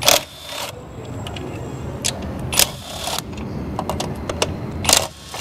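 Metal hand tools and engine parts clinking and scraping during work on the engine, with sharp clicks and three short loud bursts of noise.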